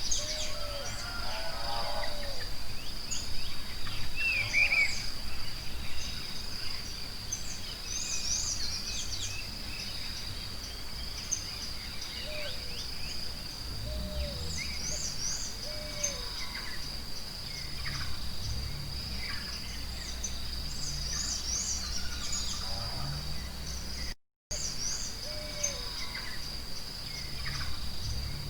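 Forest ambience: a steady high insect drone with many small birds chirping and calling over it. The sound cuts out for a moment near the end.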